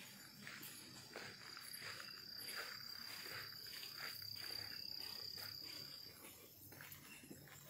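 A steady, high-pitched insect trill that stops about six seconds in, over soft footsteps on a dirt forest trail.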